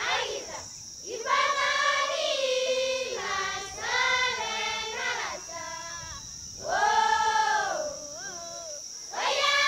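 A group of children singing together in about four phrases of a second or two each, with short pauses between them.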